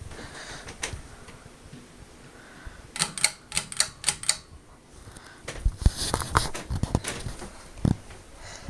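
Two bursts of rapid, sharp clicking and rattling, each lasting about a second and a half, the first about three seconds in and the second about five and a half seconds in, followed by a single soft knock near the end.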